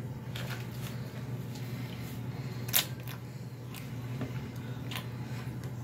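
Scattered light clicks and taps of objects being handled, the loudest a little under three seconds in, over a low steady hum.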